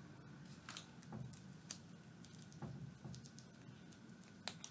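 Faint scattered clicks and taps of hands working on parts around a small quad's engine, about six in all, the sharpest near the end, over a faint steady workshop hum.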